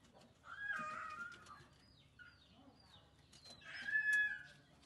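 Two short bird calls with a clucking, fowl-like quality, one about a second in and a louder one near the end, over faint crisp clicks of a rabbit chewing.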